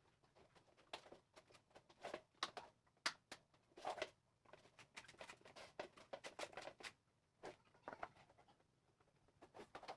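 Faint, irregular clicks, taps and short scrapes from the plastic parts of an electric fan being handled and cleaned.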